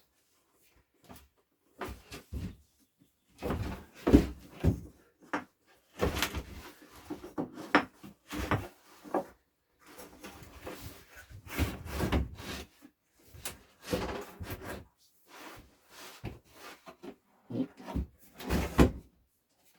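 Wooden cupboards being handled and fitted into place: irregular knocks, bumps and scraping of the wood in clusters, with brief quiet gaps between them.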